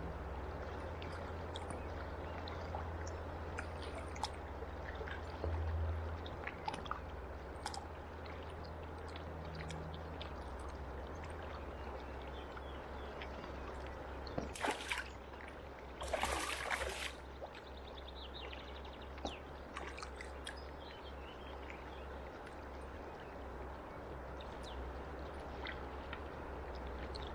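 Flowing river water: a steady rush with small trickles and splashes, and two short louder bursts of noise about halfway through.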